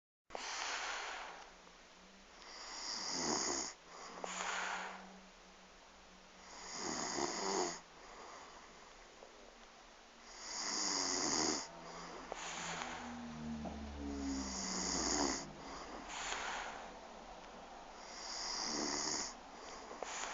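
Snoring: a rasping snore comes about every four seconds, five times in all, with a low rattling buzz in one breath near the middle.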